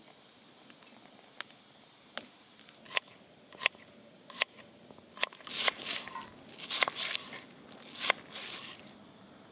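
Close handling noises: a run of sharp clicks or taps, about one every 0.7 seconds and growing louder, then three bursts of rustling or scraping in the second half.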